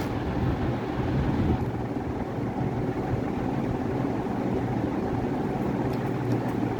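A steady low mechanical hum with an even background noise over it, unchanging throughout.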